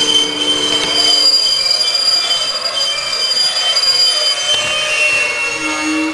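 Twilight Express sleeper train's 24 series coaches slowing to a stop, their brakes and wheels giving a loud, steady high-pitched squeal of several tones that shift near the end as the train halts.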